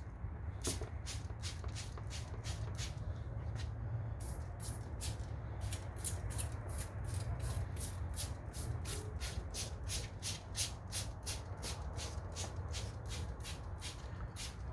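Fine wet sandpaper rubbing back and forth on a plastic headlight lens by hand, in quick even strokes about three a second, over a steady low hum.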